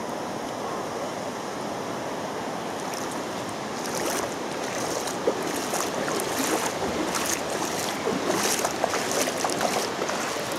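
Steady rush of flowing creek water. Irregular splashes join in from about three seconds in and run on to the end.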